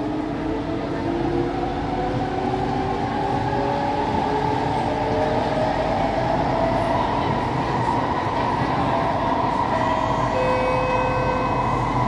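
SMRT C151A metro train heard from inside the car as it accelerates: the traction motors' whine rises in several pitches over the running rumble of the car and wheels, then levels off to steady tones in the second half.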